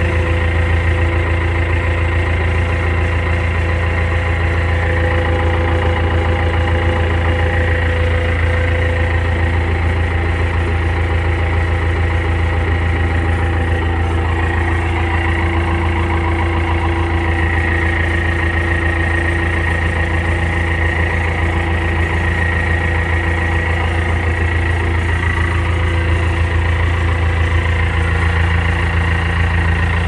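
Diesel engine of a Schwing Stetter SLM 4000 self-loading concrete mixer running steadily at idle, heard from inside the cab: a deep even hum with a steady high whine over it.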